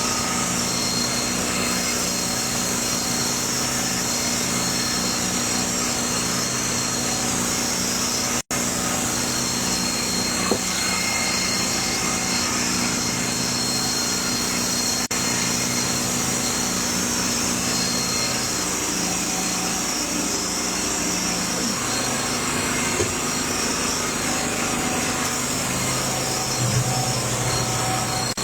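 A small engine or motor running steadily, a low hum with a hiss over it, its pitch shifting slightly about two-thirds of the way through. The sound drops out for an instant about eight seconds in.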